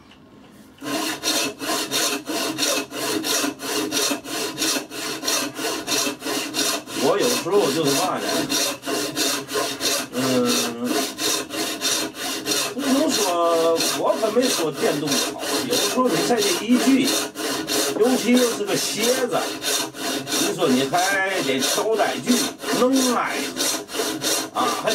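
Hand frame saw with a thin tensioned blade cutting a block of hard wood: quick, even back-and-forth strokes, about three a second, starting about a second in. A few wavering squeaky tones come through now and then.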